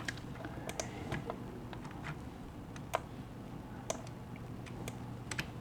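Faint, irregular light clicks and ticks, a dozen or so spread unevenly, over a steady low hum.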